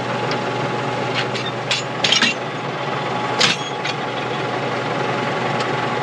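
Farm tractor engine idling steadily, with a few sharp metal clicks and clanks as the chisel plow's hitch pins and top link are worked loose to unhook it.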